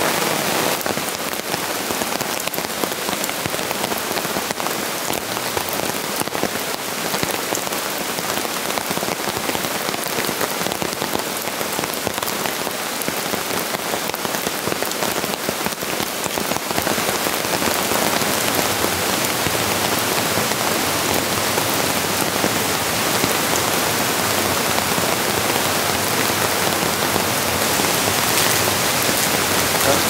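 Steady rain falling, with many separate drop hits, a little louder in the second half.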